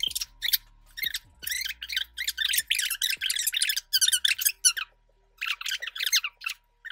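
Rustling and crinkling as clothes are pulled out of the box and handled, in quick irregular bursts with a short pause about five seconds in.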